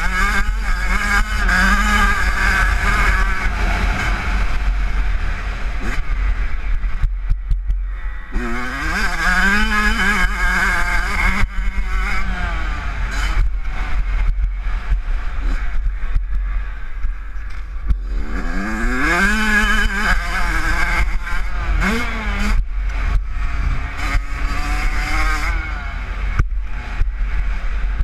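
Kawasaki KX85 two-stroke motocross engine revving hard, its pitch climbing through the gears and dropping off several times as the throttle is rolled off, with steady wind rumble on a helmet-mounted microphone.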